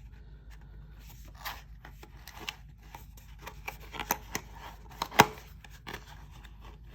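Hands opening a small presentation box: rubbing and scraping of the packaging with scattered light clicks, and one sharp click about five seconds in.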